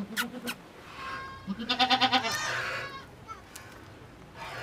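Long-haired goat bleating: one loud, quavering bleat about halfway through.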